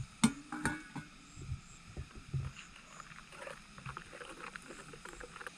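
A sharp knock, then a second knock with a brief ring, followed by light scattered knocks and clatter of hard objects being handled.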